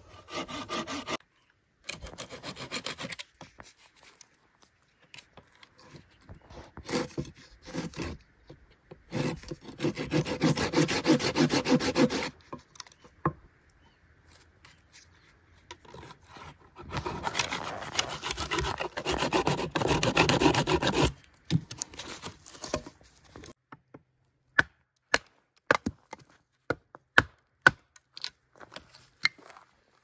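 Hand saw cutting through wood in several bouts of strokes, two of them longer, in the middle. Near the end come a series of short sharp clicks and taps.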